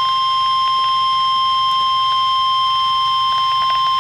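Emergency alert warning tone: a single steady, unbroken high-pitched beep at about 1 kHz, the 1050 Hz NOAA Weather Radio alarm tone that signals a warning message is coming, here a severe thunderstorm warning.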